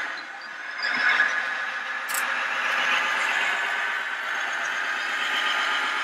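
Radio-controlled model construction machines running, with a steady, high-pitched whine of electric motors and gearing, and a short sharp hiss about two seconds in.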